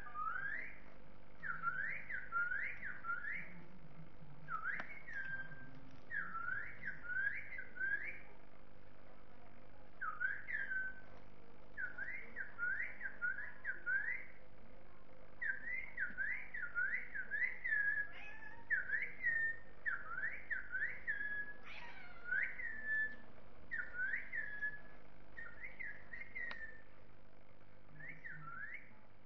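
Whistling in short notes that each slide up and then fall away, repeated in quick runs of two to five with brief pauses between runs.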